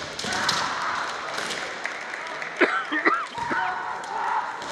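Busy kendo tournament hall: a steady murmur of many people with scattered sharp taps and claps, and a short high-pitched shout a little past halfway through.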